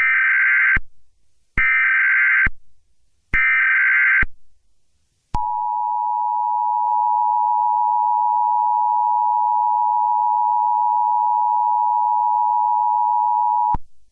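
Emergency Alert System tones: three short bursts of buzzy SAME header data, then after a brief gap the steady two-tone EAS attention signal, held for about eight seconds before it cuts off sharply.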